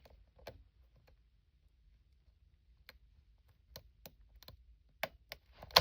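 Small, irregular metal clicks of a standard hook pick and tension wrench working the five pin tumblers of a Yale padlock as it is picked, with one sharp, louder click near the end.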